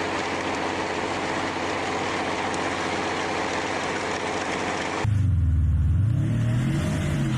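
A motor running steadily with a dense rushing noise and an even hum. About five seconds in it cuts to a louder, lower engine whose pitch rises and falls as it revs.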